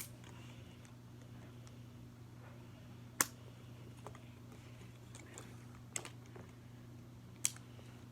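Sharp plastic clicks from a small toy figure's parts being handled and fitted, four louder ones a couple of seconds apart with fainter ticks between, over a steady low hum.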